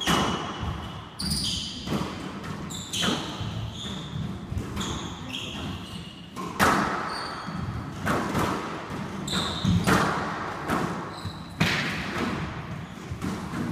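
Squash rally: the ball is struck by racquets and smacks off the court walls, a sharp hit about every second, each ringing briefly in the court. Between the hits come short high squeaks of the players' court shoes on the hardwood floor.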